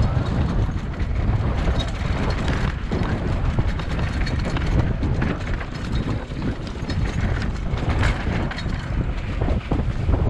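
Wind rushing over the microphone of a mountain bike riding fast on a dirt trail, with a running rattle of clicks and knocks from the bike over rough ground.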